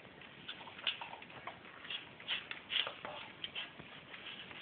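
Dog eating from a metal bowl: a run of irregular, faint crunches and clicks as it chews its food and its muzzle knocks against the bowl.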